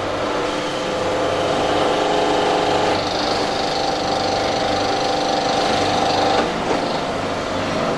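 Rebar upset-forging machine running, a steady mechanical whine with several held tones; a higher-pitched note joins about three seconds in and the sound shifts about six and a half seconds in.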